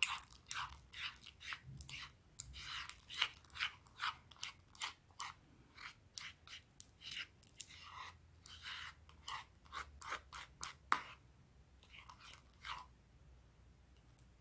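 Homemade pink slime squelching and clicking stickily as fingers knead it in a bowl, two or three squishes a second, thinning out about three-quarters of the way through. The slime is starting to firm up.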